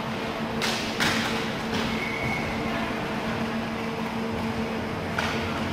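Indoor roller hockey rink ambience: a steady low hum from the building, with short noisy bursts of play on the rink floor (sticks, inline skate wheels and puck) about a second in and again near the end.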